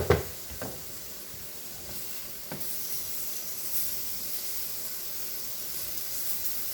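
Taco filling of pea protein sizzling and frying in a small hot pan, a steady hiss that grows louder about two and a half seconds in. A few sharp clicks or knocks come at the very start.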